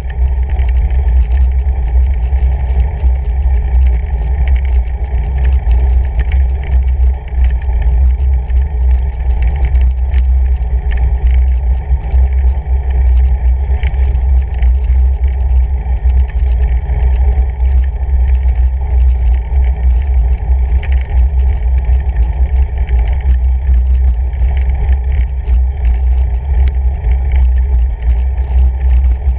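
Steady heavy rumble of a fatbike riding over a snow-covered gravel road, carried through a handlebar-mounted camera, with many small ticks and clicks.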